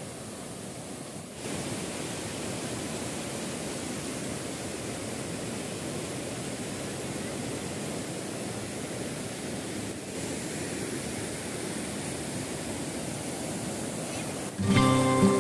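Rocky river rapids: white water rushing over and around boulders in a steady rush, stepping slightly louder about a second and a half in. Music comes in just before the end.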